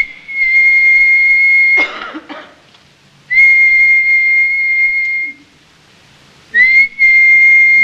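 A man whistling the same single high note over and over, absent-mindedly: three long, steady held whistles of about two seconds each, each starting with a short slide up onto the note, with pauses between.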